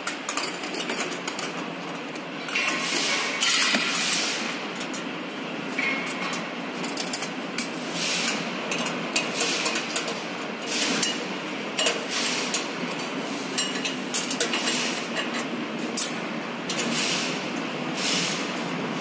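Scattered metallic clinks and knocks from parts of a reaper's chain drive being fitted by hand, with sprockets, chain and fasteners handled and tightened, over steady workshop noise.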